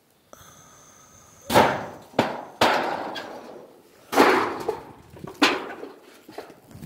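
Hammer blows on old tin roofing nailed to wood, about five uneven strikes, each with a short metallic ring.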